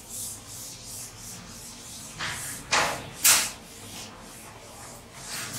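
A cloth duster wiping a chalkboard: quick rubbing strokes, about three a second, with three louder sweeps around the middle.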